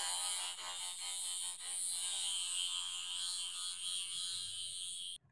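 Steady high hissing sound effect for a toy superhero figure flying, cutting off suddenly near the end.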